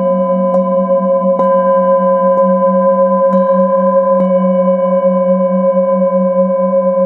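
Singing bowls sounding together: a steady low hum that wavers several times a second under higher ringing tones. Five light strikes in the first four seconds or so each add a fresh ringing tone that then sustains.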